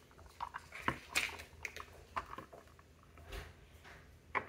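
Small plastic toy figures and their boxes being handled: scattered light clicks and rustles, the loudest about a second in.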